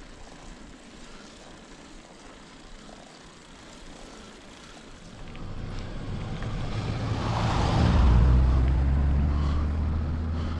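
A car approaching and passing close by. Its engine and tyre noise swell from about five seconds in, are loudest around eight seconds, then ease off, over faint road and wind noise.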